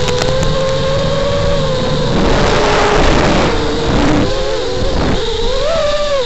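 Eachine TS215 racing quadcopter's motors and propellers whining in flight: a steady tone that bends up and down with the throttle, rising near the end. A rushing noise swells over it about two to five seconds in.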